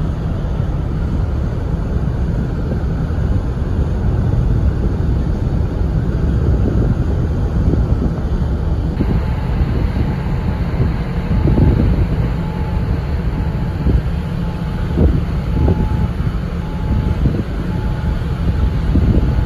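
Steady low rumble of the car ferry Ishikari under way, with wind gusting on the microphone on the open deck, the gusts more frequent in the second half.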